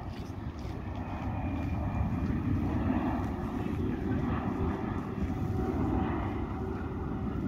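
Jet airliner flying low overhead: a steady engine rumble that swells slightly about a second in and then holds.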